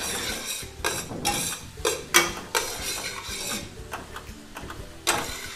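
A spatula scraping and stirring in a stainless steel sauté pan, tossing sliced bell peppers and onions with garlic and ginger as they fry, in a run of repeated strokes.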